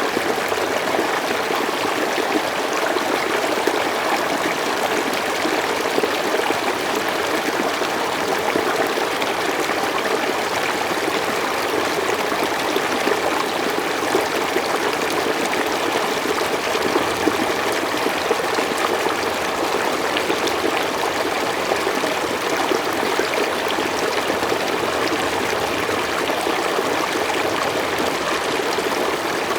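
Stream of water running steadily over rocks, a constant rushing and babbling.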